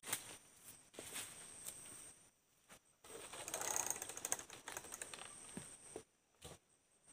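Faint, irregular mechanical clicks and rattles, with a louder rasping stretch about three to four seconds in.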